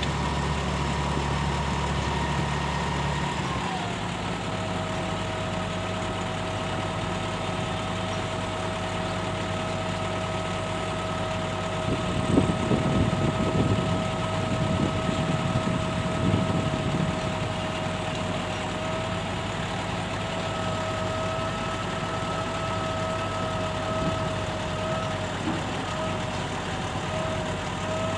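Concrete pump truck's diesel engine running steadily, its pitch stepping down to a lower speed about three and a half seconds in. A stretch of irregular knocking and clatter rises over it for a few seconds near the middle.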